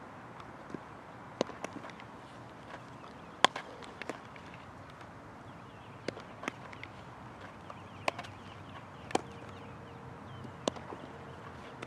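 Baseballs popping into leather gloves, the catcher's mitt among them: sharp single smacks every second or two over a low outdoor background, the loudest about three and a half seconds in.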